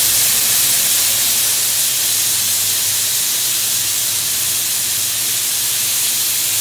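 Beef and tofu sizzling on a hot buttered sizzling plate: a loud, steady hiss of frying.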